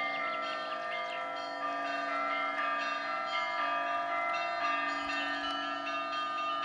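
Church bells ringing together: lower bells keep sounding beneath several higher bells struck in quick, overlapping strokes.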